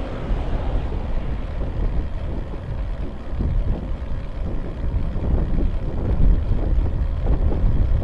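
Wind buffeting the microphone of a bike-mounted camera while riding, a steady low rumble mixed with road noise, as a van passes close by at the start.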